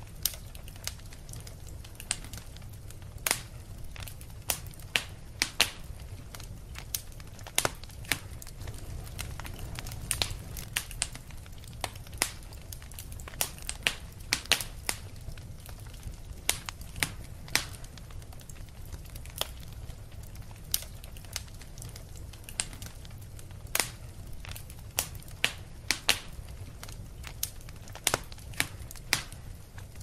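Wood fire crackling in a fireplace: sharp, irregular pops and snaps over a steady low rumble.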